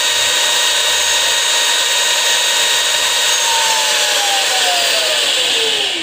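Bolde Smart Hoover Aquaman wet floor cleaner's suction motor running with a steady high whine, its dirty-water tank inlet covered as a test. From about halfway through, one tone in the whine falls steadily in pitch, and the motor begins to wind down at the very end.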